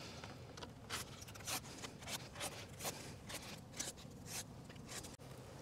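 Faint, quick scratching strokes, about two or three a second, of a marker drawing cut lines on the insulation wrap of beehives, mixed with the rustle of the beekeeper's movements.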